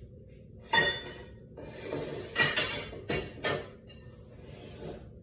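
Kitchenware clinking and knocking: a sharp ringing clink about a second in, a brief scrape, then three more knocks of a utensil against dishes or the pan, over a steady low hum.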